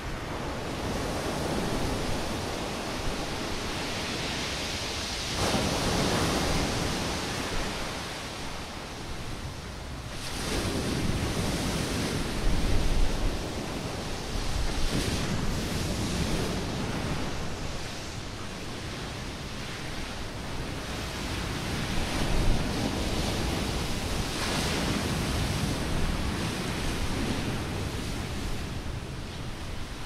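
Stormy sea: waves surging and breaking on the shore in repeated swells, the largest about five, ten and twenty-four seconds in. Wind gusts buffet the microphone.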